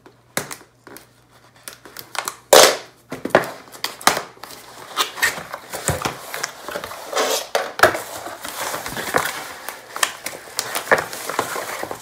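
A cardboard box being unpacked. A knife slits the packing tape, with scattered cardboard clicks and knocks and a loud knock about two and a half seconds in. Then a bubble-wrap bag crinkles and rustles as the wrapped keyboard is handled and lifted out.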